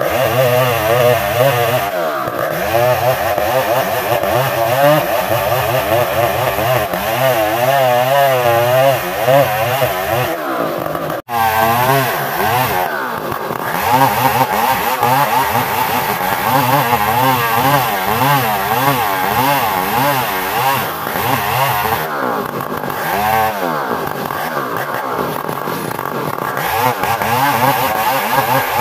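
Two-stroke chainsaw fitted with a new chain, ripping lengthwise through an ironwood (ulin) log at full throttle, its engine pitch wavering up and down under load. The sound breaks off for an instant about eleven seconds in, then carries on.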